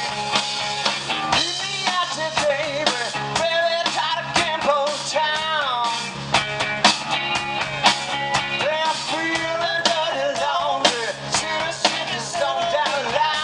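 Live rock band playing: electric guitar, electric bass and drum kit with steady drum hits, and the drummer singing lead into his microphone.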